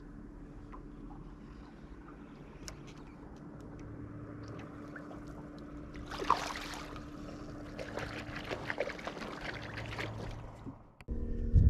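Water splashing and trickling beside a boat as a northern pike is held in the water by hand and released, with the loudest splash about six seconds in and more splashing a couple of seconds later, over a steady low hum. Near the end a loud low rumble cuts in suddenly.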